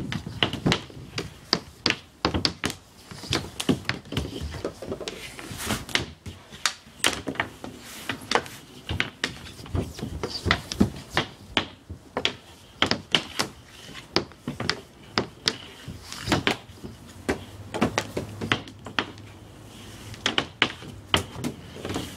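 Ball hockey shooting: sticks clacking against balls and a plastic shooting surface, with balls knocking off goalie pads and the net. Sharp knocks come irregularly, often one to three a second.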